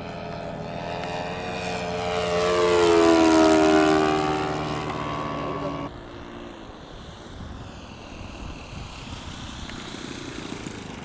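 Radio-control model P-47D Thunderbolt's propeller engine passing overhead. It is loudest about three to four seconds in, with its pitch falling as it goes by. After a sudden drop about six seconds in, the engine sounds much quieter as the model comes in to land.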